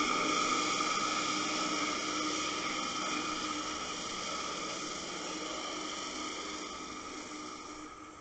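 Steady underwater hiss picked up by a camera in its housing as it is dragged along a sandy bottom on a fishing rig, with a faint steady hum under it, slowly fading.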